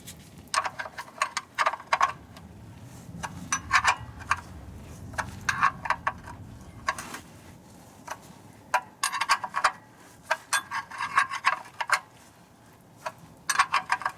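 Socket ratchet clicking in short bursts of rapid clicks, stroke after stroke, tightening a fastener on the car's underside during an oil change.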